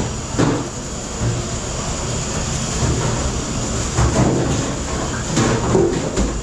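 Steady machine din of a commercial dish room, with a low hum and short clatters of dishes and racks a few times.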